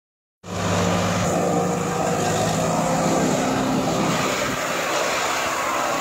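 Tractor engine running steadily under load, driving a Maschio Gaspardo Scorpion forage chopper that is cutting Napier grass, with the rushing noise of the chopping over the engine's hum. The sound cuts in suddenly about half a second in.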